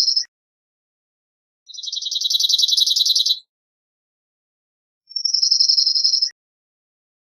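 Cirl bunting singing: high, fast trills of one note repeated rapidly. Two full phrases of a second or more come a few seconds apart, with the end of an earlier phrase at the very start.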